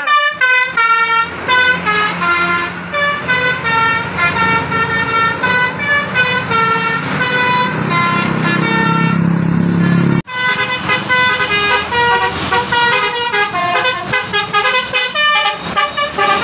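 Bus 'telolet' Basuri multi-tone musical horn playing a quick melody of changing notes over the bus's engine rumble, which swells around the middle as the bus passes. The sound breaks off for an instant about ten seconds in, then another run of horn notes follows.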